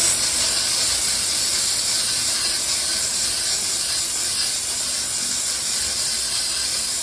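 Steam jetting at high pressure (145 psi) from the hand wand of a US STEAM Eagle Plus commercial steam vacuum, through a small detail brush onto wall tile: a steady hiss.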